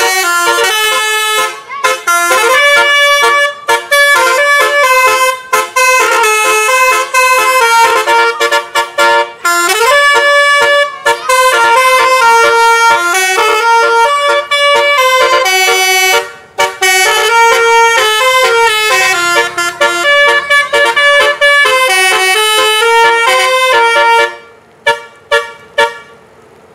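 Bus musical air horn (a 'telolet basuri' horn) playing a tune of quickly changing notes, breaking off into a few short toots about 24 seconds in.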